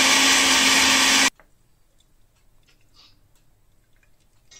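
Quigg countertop jug blender running with a steady whir and low hum, blending a liquid sauce, then switched off and stopping abruptly about a second in.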